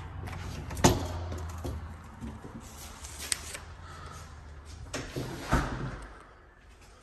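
Front door being unlocked and opened: sharp clicks and knocks of the lock and latch, the loudest about a second in, and another knock about five and a half seconds in.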